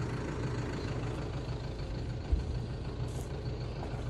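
Farm tractor engine running steadily, with a brief low thump about two seconds in.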